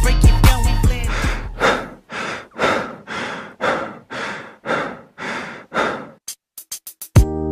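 Rhythmic heavy breathing in a dance mix, about two breaths a second, each swelling and fading, while the music drops out. Near the end comes a quick run of sharp ticks, then the music comes back in on a held chord.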